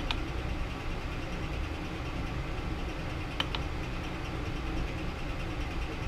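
Steady hum of a powered-up Alunar M508 3D printer, with a sharp click right at the start and two quick clicks about three and a half seconds in, typical of its menu control knob being pressed.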